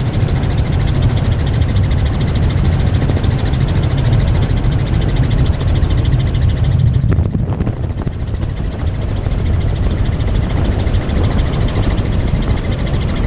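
Helicopter engine and rotor noise heard from inside the cabin in flight: a steady loud low rumble with a fast regular beat and a high whine, the whine dimming about halfway through.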